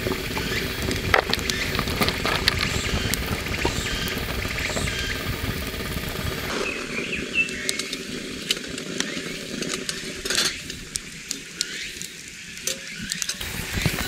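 Wood campfire crackling, with scattered sharp pops and snaps, over a steady rushing noise that drops away about six and a half seconds in.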